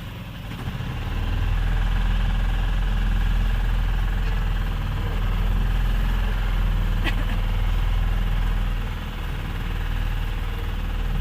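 Motorboat engine running steadily under way, its low rumble swelling about a second in and easing slightly near the end, with a single short click about seven seconds in.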